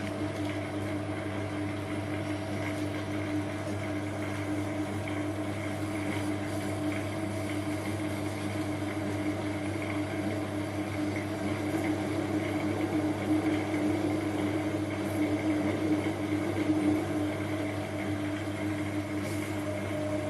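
Cheap Chinese metal lathe running under load with a steady hum from its motor and gearing, while a parting-off blade cuts deep into a large home-cast aluminium block.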